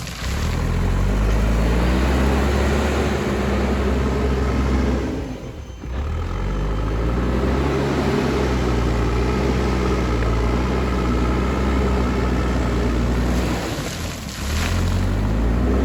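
JCB backhoe loader's diesel engine running under working load, its pitch rising and falling as the machine works. The level drops briefly twice, about six seconds in and near the end.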